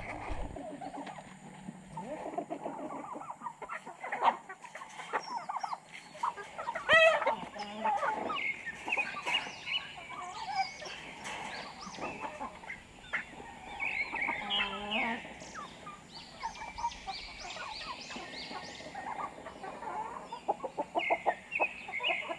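A flock of chickens and roosters clucking and calling as they feed on scattered rice grain, with a louder call about seven seconds in.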